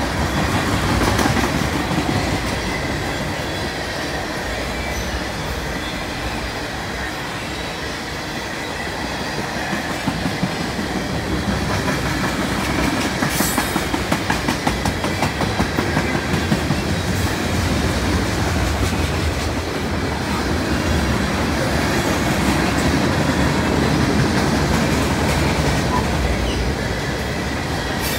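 Freight train of tank cars rolling past close by: steel wheels rumbling on the rails and clacking over rail joints, the clacks sharpest around the middle, with a faint high wheel squeal.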